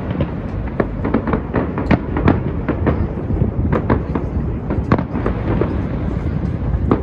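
Fireworks going off in quick succession: a dense, irregular string of bangs and crackles over a constant low rumble.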